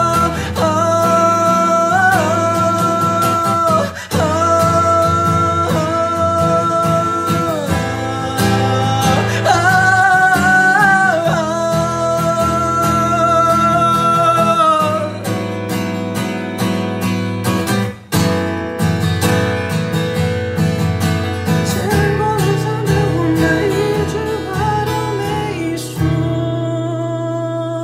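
Song outro: strummed acoustic guitar under long held, wordless sung notes that bend in pitch now and then, fading away at the very end.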